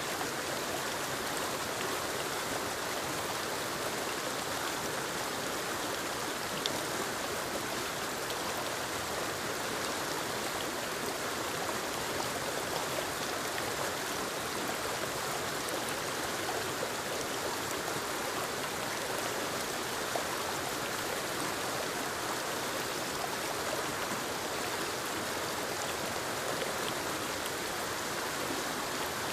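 Forest waterfall cascading over moss-covered rocks into a stream: a steady, even rush of falling and flowing water, with a few faint splashes and ticks.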